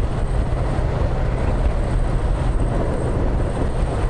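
Yamaha MT-07's parallel-twin engine running steadily at cruising speed while the motorcycle rides along, heard from on the bike.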